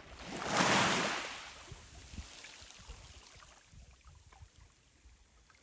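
A sea wave breaking and washing up on the shore: a hiss that swells and dies away about a second in, then faint surf.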